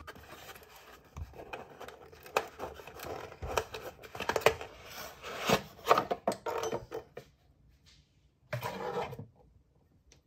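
Cardboard box opened by hand: the flaps scrape and rub, with irregular light knocks and clicks. Near the end there is a short rustle of wrapping paper as the ceramic bowl inside is taken out.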